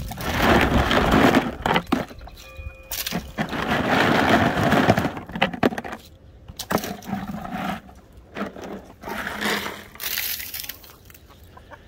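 Hard pretzels being broken up by hand, crackling and crunching in two bursts, one at the start and one about three seconds in, with hens clucking in between.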